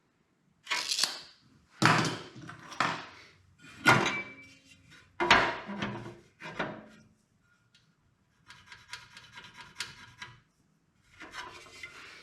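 Hardware and parts being handled in a workshop: about five sharp knocks, each followed by scraping, over the first seven seconds, then two stretches of fast rattling clicks.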